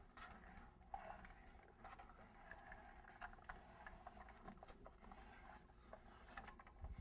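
Faint handling noises: light clicks and rubbing as a gas control valve is spun by hand into its threaded fitting on a water heater tank.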